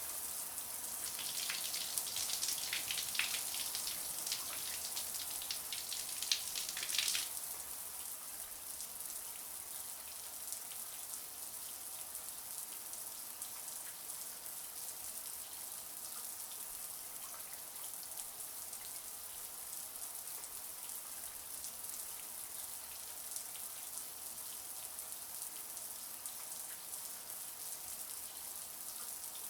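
Shower water running, its spray spattering unevenly and a little louder for the first several seconds, then settling into a steady hiss.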